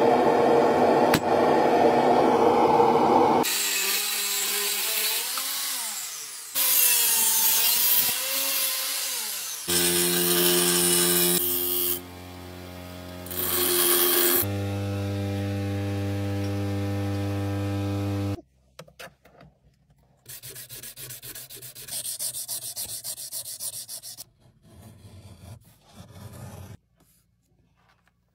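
Metalworking sounds in quick succession: harsh scraping and rubbing on steel, then a grinding wheel running with a steady motor hum while a blade is held to it, with hissy bursts of grinding. Quieter short scraping and tapping follow, fading out near the end.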